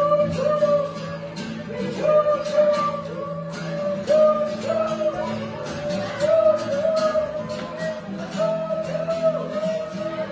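Music with guitar and singing, with a steady beat.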